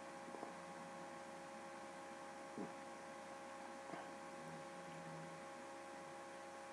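Faint steady electrical hum made of several held tones over a low hiss, with a few faint clicks.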